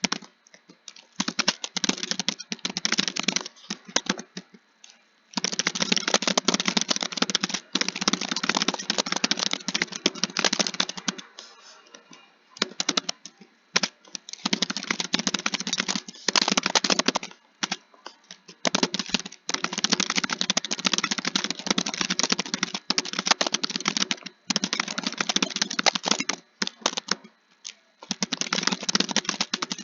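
Computer keyboard being typed on: fast, continuous runs of key clicks in stretches of several seconds, broken by brief pauses.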